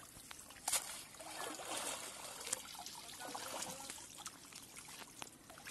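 Water trickling and dripping from a wet cast net as it is gathered and lifted out of shallow river water, with one brief sharper splash under a second in.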